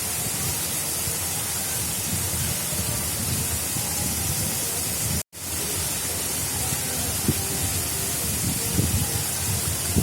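Water of an artificial river flowing steadily, a dense even rushing with low splashes and gurgles in the second half. The sound cuts out completely for a split second about five seconds in.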